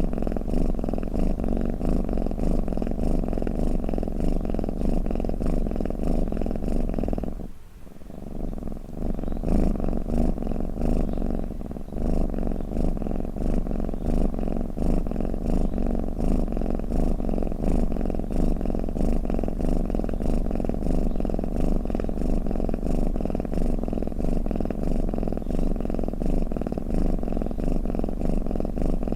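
Domestic cat purring continuously: a steady low rumble that drops away for about a second some seven seconds in, then carries on.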